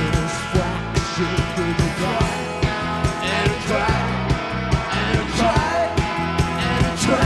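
Rock band playing live with a steady drum beat, bass and guitar, from a 1987 cassette tape recording whose sound is somewhat dulled by the old two-head cassette deck it was made on.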